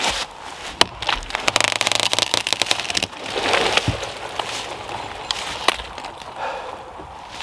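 A Rinaldi Calabria axe bites into a small tree's trunk with a sharp knock, then the remaining wood cracks and splinters in a quick run of crackles as the tree tips over, followed by a rushing crash as it falls into the neighbouring branches. Another sharp knock comes near the end.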